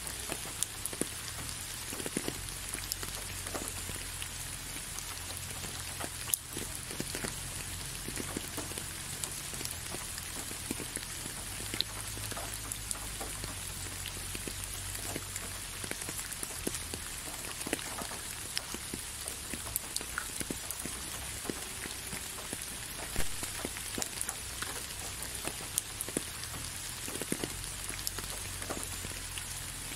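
Steady rain: an even hiss with many separate drops ticking sharply close by, over a faint low rumble.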